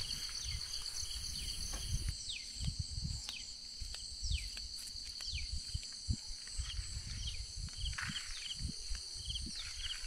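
Insects trilling steadily in a high, pulsing chorus, with short falling chirps now and then. Irregular low thumps and rumble sit underneath.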